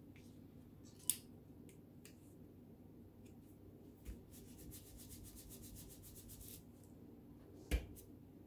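Cut-paper collage pieces handled and pressed flat by hand on a table: a sharp tap about a second in, a run of quick scratchy ticks around the middle as the paper is rubbed down, and a thump near the end as a palm presses on it.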